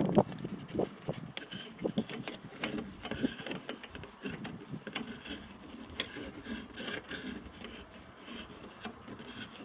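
Hand tools and small metal parts being handled and worked: irregular clicks and light knocks with some scraping.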